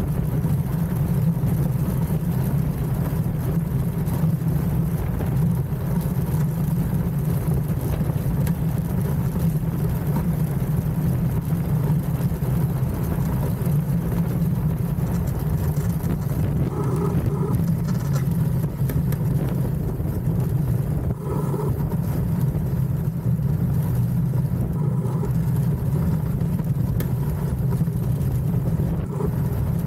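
A DN-class iceboat under way at speed: the steel runners on the ice make a steady, dense rumble, mixed with the rush of wind.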